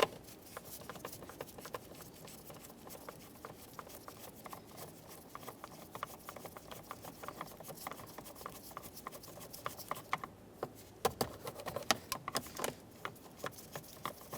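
Phillips screwdriver working screws out of a plastic steering column cover: light clicks, ticks and scrapes of the bit and screws, sparse at first and getting busier and louder about two-thirds of the way through.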